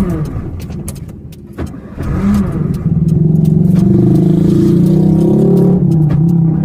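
1994 Honda Civic's carbureted four-cylinder engine, cold and stalling-prone, blipped briefly at the start and again about two seconds in, then held at raised revs with a slight waver. The throttle is being worked to keep it from stalling.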